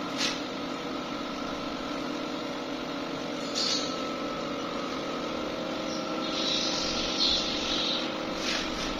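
A steady mechanical hum with several level tones, with a few light knocks and a hiss about six to eight seconds in.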